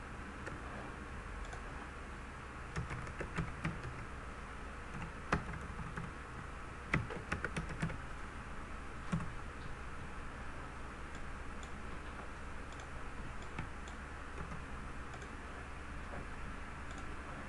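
Computer keyboard typing: irregular, quick keystroke clicks, most of them in a cluster a few seconds in, with a few scattered taps later. A steady low hum and hiss run underneath.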